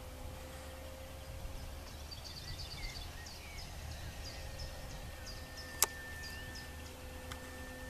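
Outdoor ambience with a low wind rumble and a faint steady hum. Through the middle, a small bird chirps a quick series of short high notes. A little past the middle there is one sharp click.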